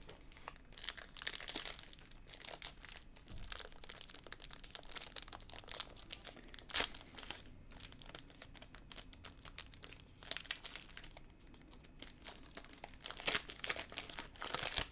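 Crinkling and rustling of a foil trading-card pack wrapper being torn open and handled, in irregular bursts of crackle.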